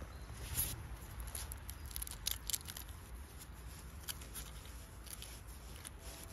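Rustling and small irregular crackles from a gloved hand handling a cluster of oyster mushrooms on a log, over a steady low rumble.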